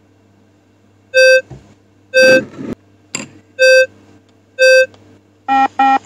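Beep Test Pro app's electronic beeps timing the shuttle runs: four short, steady beeps about a second apart, then a quick double beep at a different pitch near the end.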